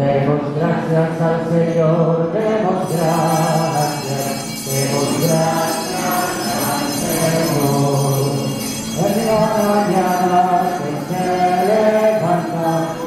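Church hymn: voices singing over steady, held low notes of accompaniment.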